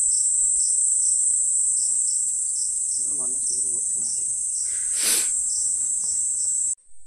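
Steady high-pitched shrill of insects singing, with a faint pulsing beneath it, and a brief rustle about five seconds in. The sound cuts off abruptly near the end.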